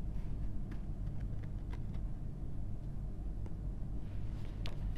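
Steady low background rumble, with a few faint clicks scattered through it.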